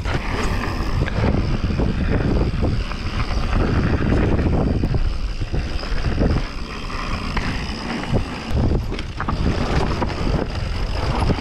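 Wind rushing over an action camera's microphone as a mountain bike is ridden fast down a dirt forest trail, with sharp knocks and rattles from the bike over bumps.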